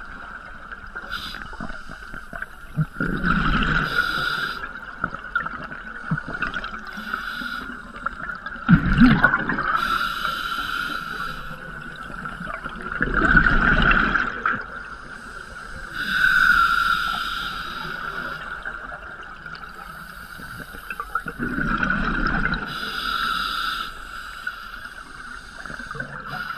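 Scuba diver breathing through a regulator underwater: about five breaths, each a hissing inhale and a gurgling rush of exhaled bubbles, over a thin steady tone.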